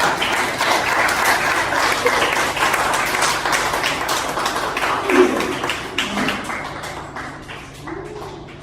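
Audience of children in a hall applauding, a dense patter of hand claps that thins out and fades over the last few seconds.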